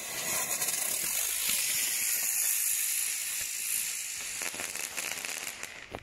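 Xplode Crackling Bird firework burning with a steady hiss, then breaking into its loud crackling finale, a rapid run of many small pops, from about four and a half seconds in.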